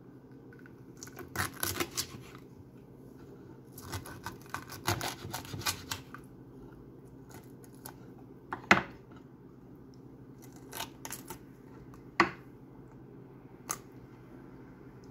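Kitchen knife cutting through whole alewives on a wooden cutting board: two spells of crackling, crunching cuts through scales and bone, then a few single sharp clicks.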